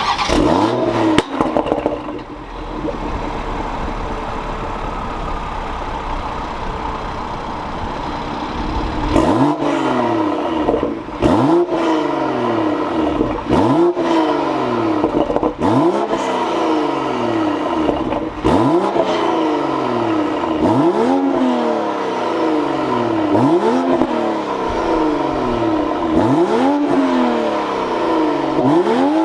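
Toyota Supra engine breathing through a catless downpipe, idling for several seconds and then revved over and over, each rev climbing quickly and falling back, about every two seconds.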